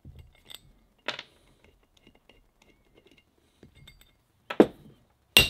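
Small metallic clicks and clinks as the cover screws come out of a bronze raw water pump and are handled. Near the end come two sharp, ringing knocks of a screwdriver against the pump's bronze cover plate as it is worked loose.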